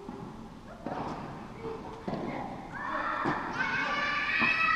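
Tennis ball being struck and bouncing during a rally, a few sharp knocks echoing around a large hall, the loudest a racket hit at the very end. A drawn-out high squeak sounds for about two seconds before that last hit.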